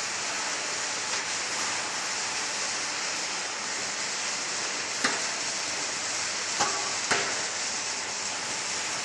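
Toggle clamps on a stainless-steel sifter cover being snapped shut: a few sharp metallic clicks, the loudest between about five and seven seconds in, over a steady hiss.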